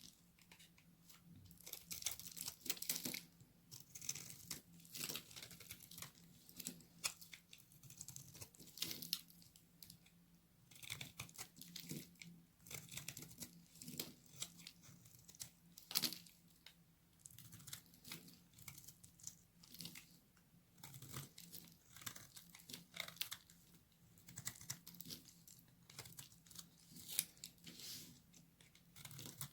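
Knife cutting through very dry bar soap: a run of crisp, irregular crunches and crackles, with one sharper crack about halfway through.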